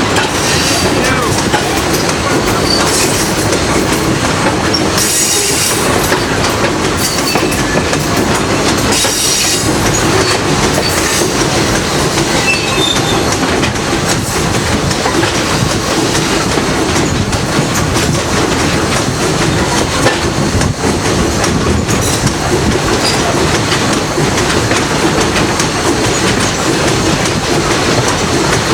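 A train's passenger coach rolling along the track with a steady, loud rumble of wheels on rail. A brief high-pitched sound comes twice, about five and nine seconds in.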